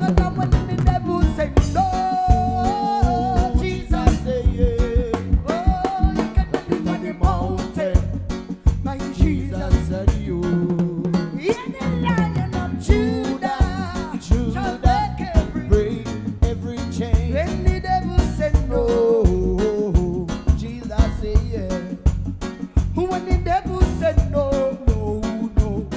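Live band playing a reggae groove, led by a drum kit played close by: steady drum and cymbal hits under guitar and a melody line.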